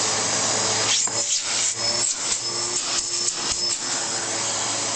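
Hoover Pure Power bagless vacuum cleaner running with a home-made cyclone pre-filter box on its hose: a steady motor whine and rush of air, broken by many short clicks and rattles.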